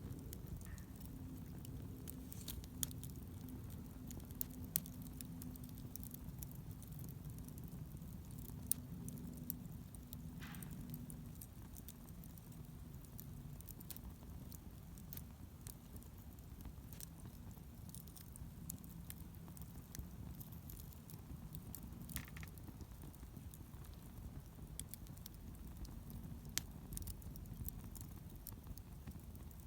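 Wood fire crackling, with irregular sharp pops and snaps over a low steady hum. Two brief high squeaks come through, about ten and twenty-two seconds in.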